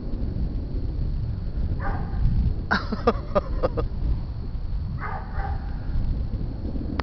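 A dog barking: one bark about two seconds in, then a quick run of short barks, and another bark about five seconds in. A continuous low rumble runs underneath.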